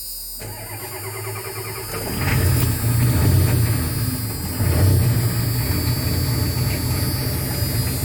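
A Ford 6.9L International V8 diesel is cranked on its starter, catches about two seconds in and runs, its speed swelling up and back down twice. This is its first start after an injector replacement, with air bled from the fuel lines.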